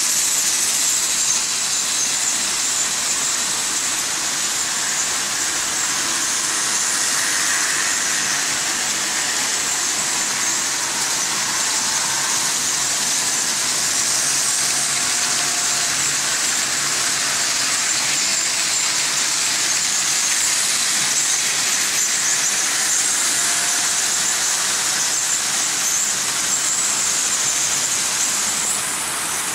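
Several Märklin H0 model trains running at once on metal M-track: a steady, high-pitched rattle and squeal of wheels and centre-rail pickup shoes running over the track, with faint motor whines here and there.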